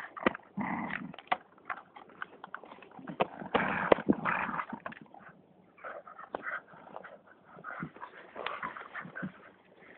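A dog playing with a large stick in long grass: irregular knocks and scrapes of the stick, with short dog growls and whines among them, busiest about three and a half to four and a half seconds in.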